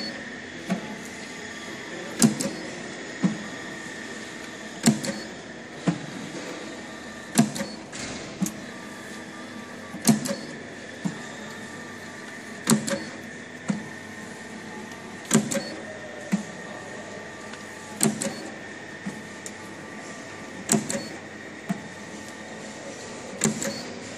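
Sheet feeder, conveyor belt and SAVEMA SVM 32I thermal transfer printer running a paper job. A steady motor whine runs throughout, and a loud clack followed by a few lighter clicks repeats about every two and a half seconds as each sheet is fed through and printed.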